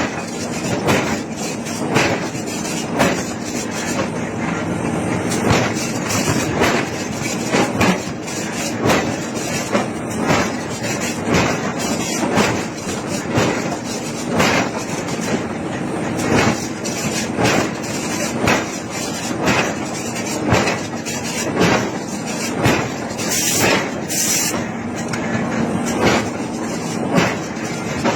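Heavy hammer blows on iron being forged, striking steadily about once a second over a constant machine hum.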